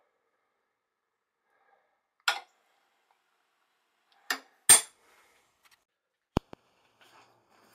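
A few sharp metallic clinks as a steel plane blade is handled and knocked against metal, three of them, the third the loudest, followed by a single short click a couple of seconds later.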